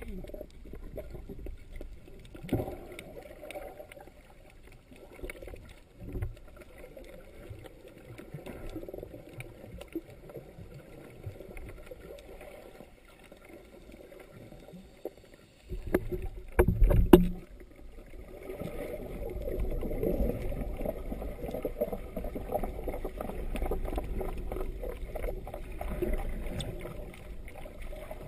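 Muffled water noise heard through a sealed GoPro dive housing as it is moved through the water, with a loud dull thump a little past halfway. After it the rushing gets louder and rougher.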